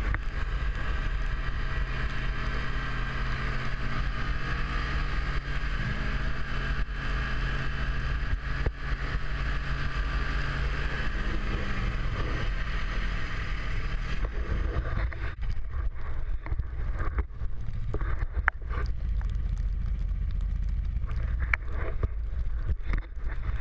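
Snowmobile engine running steadily while the machine is ridden over snow, with wind on the microphone. About fourteen seconds in, the engine's higher tone falls away and irregular knocks and crackles come through.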